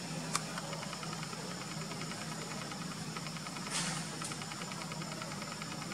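Forest insects droning steadily, with a rapid pulsing chirp of about ten pulses a second that starts under a second in. A sharp click comes near the start, and a short rush of hiss about four seconds in.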